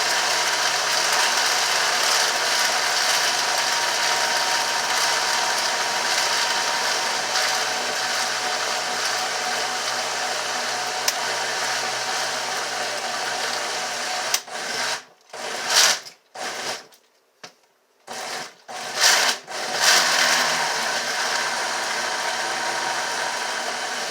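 Countertop blender running on a thick slurry of banana peels, food scraps and water. Partway through it is switched off and on in about five short pulses, then runs steadily again. The thick banana peels are hard for this blender to break up.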